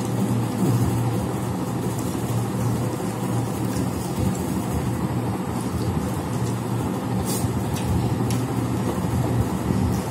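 Steady low background hum, with a few faint clicks about seven and eight seconds in.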